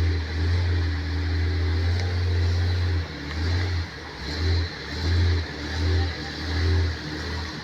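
An off-road 4x4's engine holds a steady drone for about three seconds. It is then revved in about five short throttle surges as the vehicle is worked over an obstacle.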